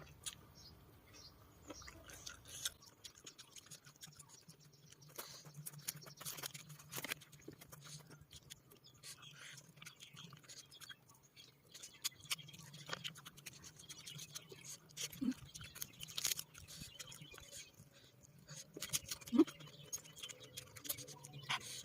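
A person chewing a mouthful of seafood papaya salad close to the microphone: irregular wet clicks and crunches.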